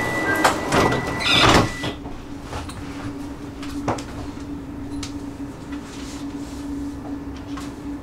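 Train's sliding doors shutting, with a loud surge of noise at about a second and a half as a steady high tone cuts off. After that, a steady hum from the standing train with a few light clicks.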